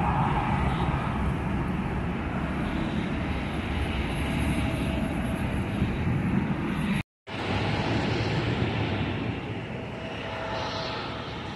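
Airliner jet engines heard from across the airfield, a steady rumbling noise. The sound cuts out for a moment about seven seconds in, then goes on more quietly with an Airbus A320's engines as it lifts off.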